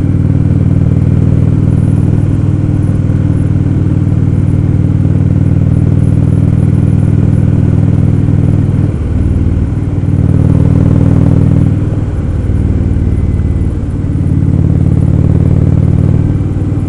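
Indian Roadmaster's air-cooled V-twin engine running at road speed, heard from the saddle with wind noise. The engine note drops and comes back several times in the second half.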